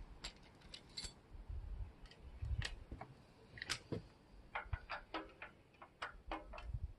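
Hand socket ratchet clicking in short, uneven runs as exhaust clamp nuts are loosened, with a quicker run of clicks a little past halfway.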